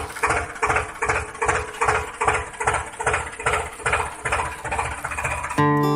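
Tractor engine chugging at idle in an even beat of about three puffs a second. Strummed guitar music cuts in near the end.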